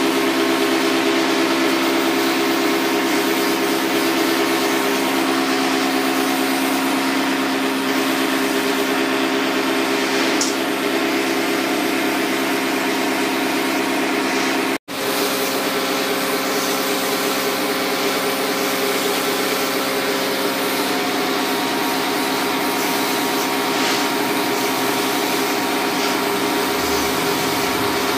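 Portable pressure washer running steadily while its spray lance jets water onto a split AC indoor unit, a steady motor hum under a hiss of spray. The sound cuts out for an instant about halfway through, then carries on.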